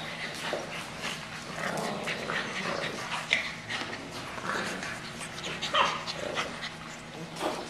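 English bulldog puppies vocalising as they play-fight over rope toys, with a handful of short, high yelps and whimpers. Between them come many small clicks and scrapes of claws and toys on the tile floor.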